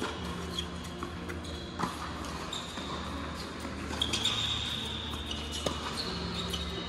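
Tennis rally on an indoor hard court: several sharp pops of racket strikes and ball bounces a second or two apart, with sneakers squeaking on the court surface, most around the middle.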